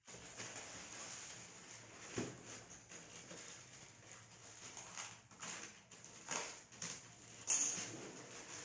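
Plastic wrapping crinkling and rustling in short crackles as a wrapped dumbbell weight plate is handled, over a steady hiss.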